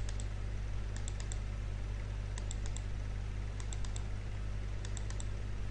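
Clicks from a computer mouse and keyboard, in quick groups of three or four about every second and a quarter, over a steady low electrical hum.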